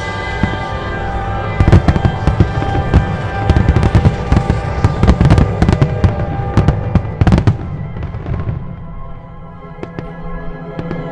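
Aerial firework shells bursting in a rapid, dense volley of sharp bangs over accompanying music. The bangs come thick and fast from about a second and a half in and stop about eight seconds in, leaving the music.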